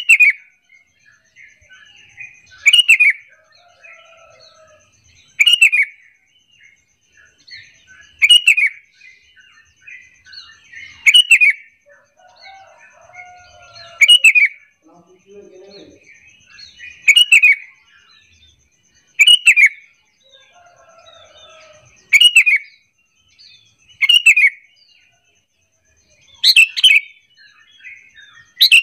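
Sooty-headed bulbul (kutilang) calling: a loud, short, falling call repeated about every two and a half to three seconds, with softer chattering between. It is a lure call meant to get other bulbuls to answer.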